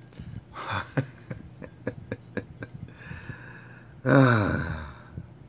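A man's wordless, excited vocal reaction about four seconds in: a breathy intake followed by a loud 'ohhh' that falls in pitch, with a few soft clicks before it.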